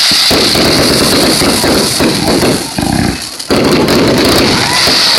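Aerial fireworks going off in a rapid barrage, bursts and crackles packed close together, with a short lull about three seconds in.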